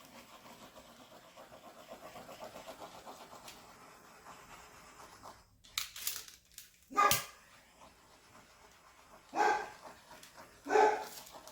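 A dog barks four times in the second half, the last three loudest. Before that there is a faint steady hiss from a handheld torch.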